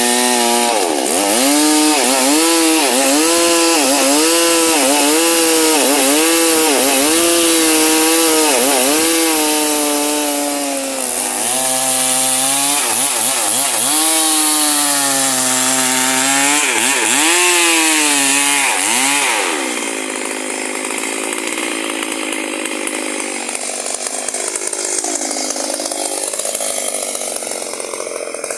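Stihl MS 382 two-stroke chainsaw running near full throttle while cutting wood, its engine pitch dipping and recovering about once a second as the chain bites in. For the last several seconds the sound turns quieter and rougher, with no clear engine note.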